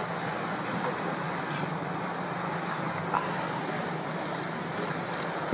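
Steady low motor hum of a boat engine running, over a continuous wash of water, with one short sharp sound about three seconds in.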